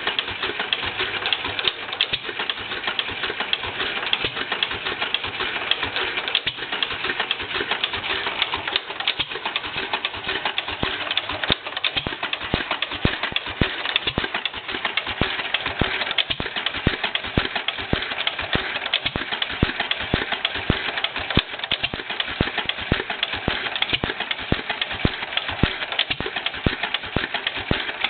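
1954 Fairbanks-Morse ZC52 throttle-governed stationary oil field engine running very slowly on propane, around 100 to 150 RPM, with a steady run of sharp mechanical clicks.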